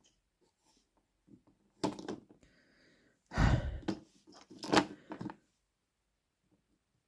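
A few short knocks and rustles from handling small parts and tools on a desk, the loudest and longest about three and a half seconds in.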